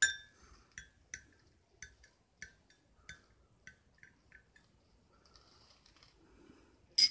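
Metal teaspoon clinking against a cup of milk tea as butter is added: a sharp clink at the start, about eight lighter, uneven clinks over the next four seconds, and another sharp clink near the end.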